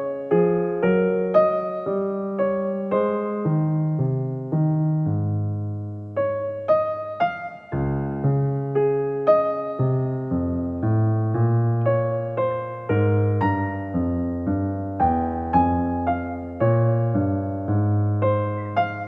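Soft background music: a slow electric piano melody over sustained bass notes.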